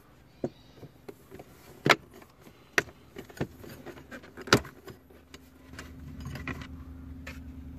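Hard plastic dashboard trim clicking and knocking as a metal scraper blade pries the panel around the touchscreen loose, with several sharp cracks among lighter taps. A steady low hum comes in about halfway through.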